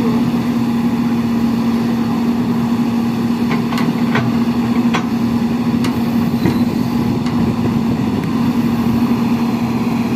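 Excavator diesel engine running at a steady pitch, with a few faint clicks scattered through it.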